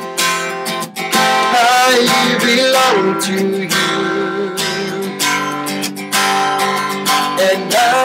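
Acoustic guitar strummed in a steady rhythm, with a man singing a melody over it.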